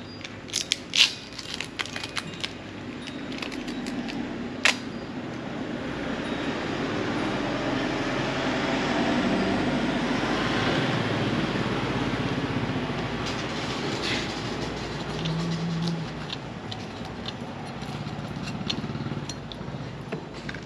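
A vehicle passing, its noise building slowly to a peak about ten seconds in and then fading away, after a few sharp clicks near the start.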